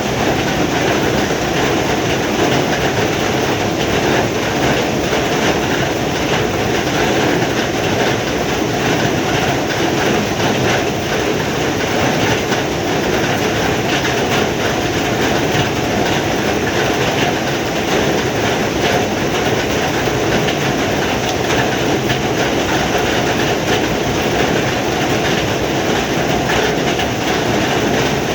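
Heavy rain falling steadily: a dense, even hiss dotted with many small drop ticks.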